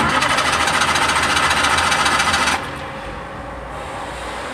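Vehicle starter motor cranking the engine with a loud, rapid whirring rattle that starts suddenly and cuts off after about two and a half seconds. A quieter steady engine rumble remains.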